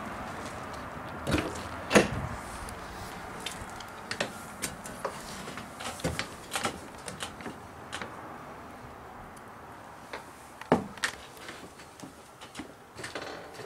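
Door knocks and clicks as someone enters a travel trailer: two sharp knocks about a second and a half and two seconds in, then scattered light clicks and steps inside, and another sharp knock about eleven seconds in.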